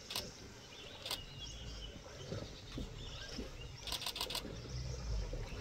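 Birds chirping in the background, broken by short runs of sharp clicks: one just after the start, one about a second in and four in quick succession about four seconds in. A low rumble builds near the end.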